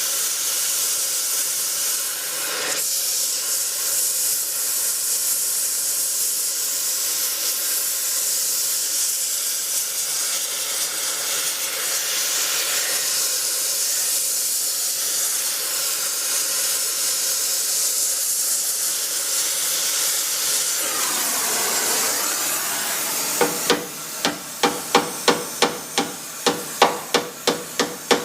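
Steady, loud hissing. Near the end comes a run of about fifteen sharp knocks, three or four a second, each with a short metallic ring.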